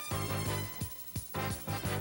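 Instrumental background music with a beat and notes that slide in pitch.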